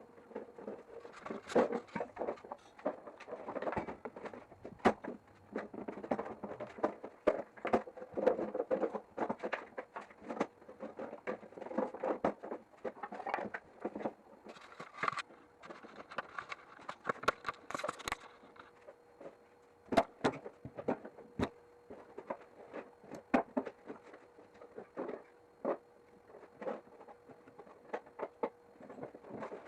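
Irregular knocks, clicks and rustling of hand work and handling materials, over a faint steady hum.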